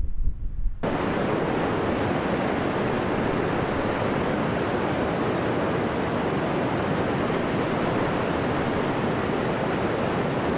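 Low wind rumble on the microphone, then, a little under a second in, a sudden cut to a mountain stream rushing over rocks, a steady, even rush of water.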